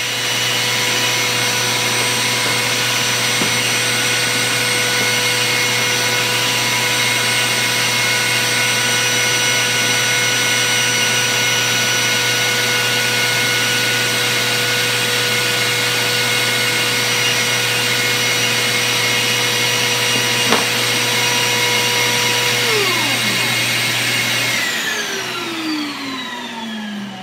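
Table-mounted wood router and dust-extraction vacuum running steadily with no load, a high whine over the air noise, with one sharp click about twenty seconds in. Near the end both are switched off and wind down, their pitch falling over the last few seconds.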